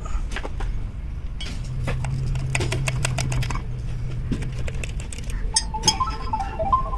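Clicks and clinks of metal starter-motor parts being handled: the armature, the aluminium drive-end housing and the rods and tools in it. Near the end a pitched tone that steps up and down a little joins in.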